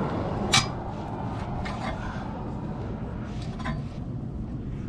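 A sharp clank about half a second in, then a few fainter clicks, of tools and hardware being handled while the screws of an RV rear stabilizer jack are taken out, over a steady low rumble.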